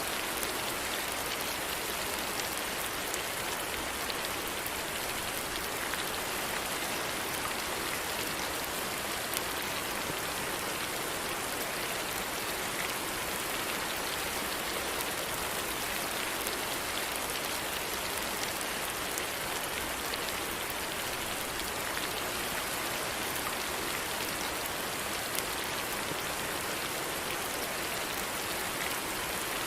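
Steady rain falling, an even hiss with fine patter of drops hitting a surface.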